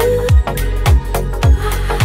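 Background electronic dance music with a steady kick-drum beat, about two beats a second, over a sustained bass line.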